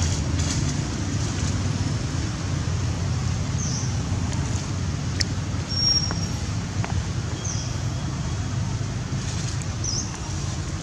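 Steady low outdoor rumble, with short high chirps every couple of seconds and a few faint clicks.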